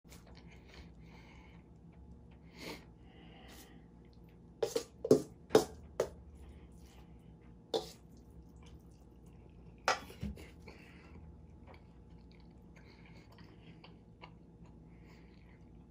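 A metal spoon clinking and scraping against a stainless steel mixing bowl: a run of sharp clinks starting about four and a half seconds in, one more near the eight-second mark and a last one around ten seconds, with quiet chewing in between.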